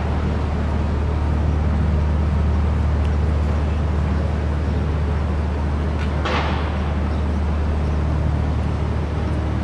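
A heavy vehicle's engine running steadily with a low hum in street traffic, and a short hiss of released air about six seconds in.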